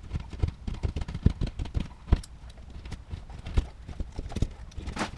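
Irregular hollow knocks and taps, a few a second, with two louder thumps in the first half, from hands and tools working at a hole in drywall.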